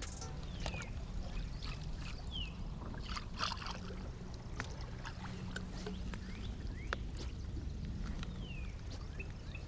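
Low, steady rumble of wind and small waves lapping against the side of a fishing boat, with scattered light clicks and a few short, high, falling chirps.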